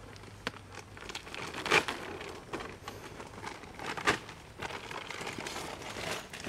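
Woven plastic feed sack and the plastic wrapped around its mouth crinkling and rustling as hands work at the tie, with scattered sharp crackles, the loudest about two seconds in and again about four seconds in.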